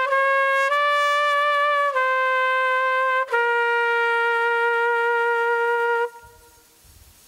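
Solo trumpet playing the closing phrase of a national anthem in slow, held notes. It ends on one long note of nearly three seconds that stops about six seconds in.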